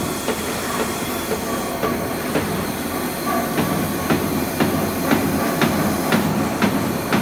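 CNC foam cutting machine running, with a steady mechanical noise and an even clicking about twice a second.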